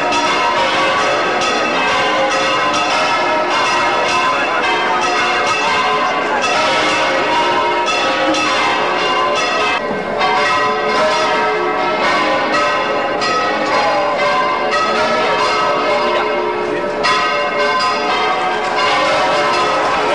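Church bells ringing a continuous, loud peal, many bells struck in quick succession so that their tones overlap.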